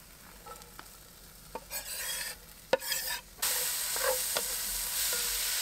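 Bell peppers, onions and garlic sizzling in a Dutch oven as they are stirred, with a few clicks and one sharp knock. The sizzle comes in short bursts at first, then runs loudly from about halfway.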